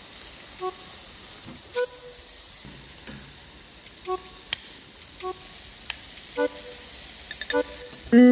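Pork belly sizzling steadily on an electric tabletop grill, with a couple of sharp clicks from the kitchen scissors and tongs cutting and moving the meat.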